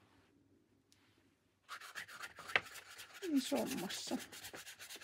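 Paintbrush scrubbing acrylic paint onto sketchbook paper: a run of quick, scratchy back-and-forth brush strokes that starts about a second and a half in.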